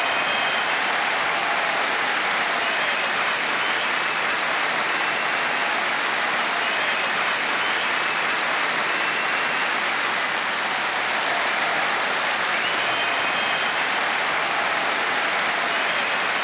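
Large audience applauding steadily, a dense wash of many hands clapping.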